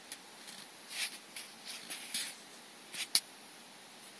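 Faint, irregular rustling and scraping as a Hogg Island boa constrictor works a rat down on soft paper-pulp bedding, with one sharp click about three seconds in.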